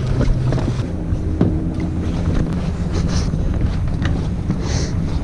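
Wind rumbling on the microphone, with a few light knocks and rustles along the way.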